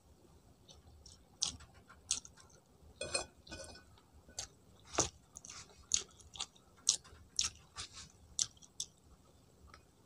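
Mouth sounds of someone chewing rice and meat: irregular short wet smacks and clicks, about one or two a second.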